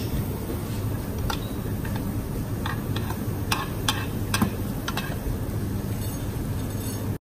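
Steady low hum of a commercial kitchen with a handful of light clicks and taps of a metal spoon against a china serving bowl while a dish is being garnished. The sound cuts off suddenly near the end.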